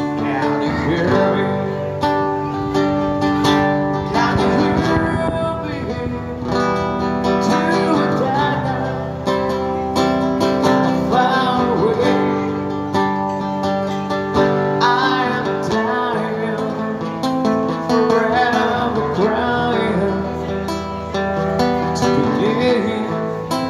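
Live acoustic music: a man singing to his own strummed acoustic guitar.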